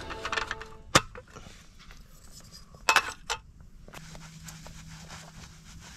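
Metal tongs clinking against the grill as the ribs are handled: a sharp clink about a second in and two more close together around three seconds.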